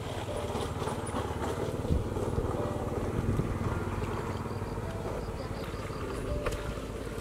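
Pond water sloshing and splashing as two children wade through it, dragging a long fishing net, over a steady low rumble.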